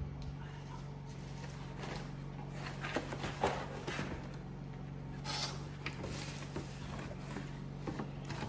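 Packaging being handled and unwrapped: scattered short rustles and crinkles, the loudest about five seconds in, over a steady low hum.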